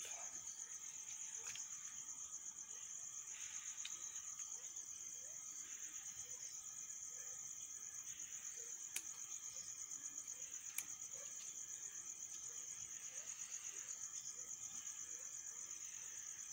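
Steady, high-pitched trill of crickets with a rapid pulse, running behind everything. Two faint sharp clicks about two seconds apart near the middle.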